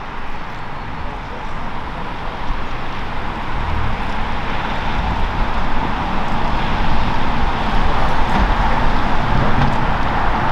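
Airbus H135 helicopter's twin Pratt & Whitney PW206B3 turboshaft engines running on the ground with a steady turbine whine, the sound gradually growing louder.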